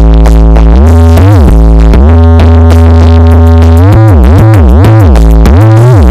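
Very loud electronic bass-test music on a carnival sound system: a heavy synth bass holds low notes and slides up and down in pitch several times, over an electronic beat, played as a sound check.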